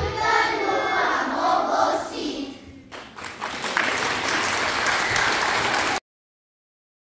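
A children's choir sings the last phrase of a song, then audience applause starts about three seconds in and cuts off suddenly.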